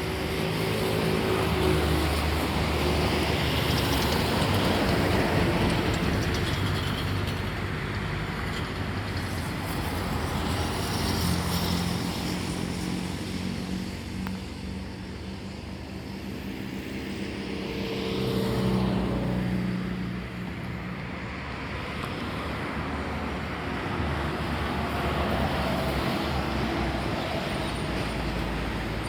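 Road traffic on a city avenue: cars and heavier vehicles passing one after another, swelling and fading as each goes by.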